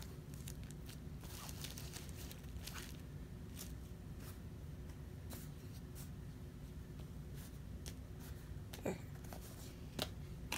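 Faint scattered rustling and light clicks of a cardboard box being handled and opened, with two sharper ticks near the end, over a low steady room hum.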